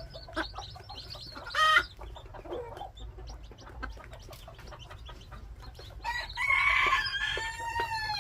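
Gamefowl clucking among scattered small clicks, with a short loud call about a second and a half in. Near the end a rooster crows, a long call of about two seconds.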